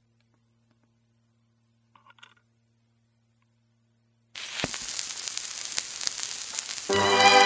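Faint steady hum, then about four seconds in the surface hiss and crackle of a 78 rpm shellac record begins suddenly with a few clicks. Near the end the theatre orchestra comes in.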